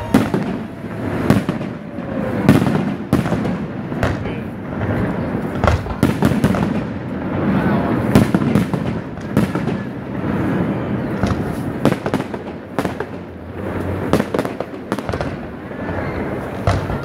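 Aerial fireworks display: shells bursting overhead in quick succession, a steady run of sharp bangs and crackles.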